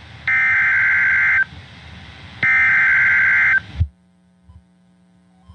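Emergency Alert System SAME digital data bursts: two harsh, buzzing two-tone bursts of about a second each, a second apart, that mark the coding of a weather warning. They stop about four seconds in, leaving a faint low hum.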